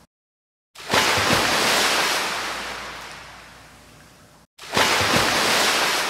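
Loud rushing noise, like surf or wind. It swells suddenly and fades away over about three and a half seconds, twice, and each time is cut off by a moment of dead silence.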